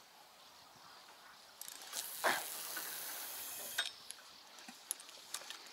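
Feeder-rod cast: fishing line hissing off a spinning reel's spool for about two seconds, with a sharp splash-like stroke early in the hiss as the feeder lands. The hiss stops abruptly and a few clicks of the reel follow.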